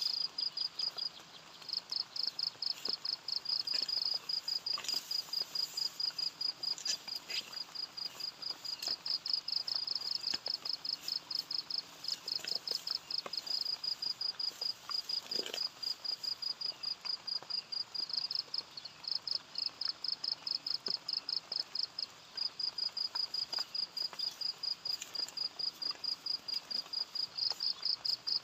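An insect chirping: a high, rapid pulsed trill in long even runs, broken by a few short pauses.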